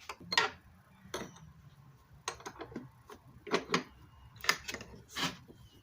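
Irregular light clicks and knocks of a flat wrench and metal router parts being handled as a fitting on the router table is loosened and adjusted.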